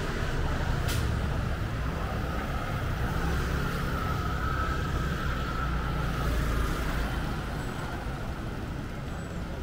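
Street traffic passing close by: a steady low rumble of motor vehicles, with a faint higher whine running through it and a brief click about a second in.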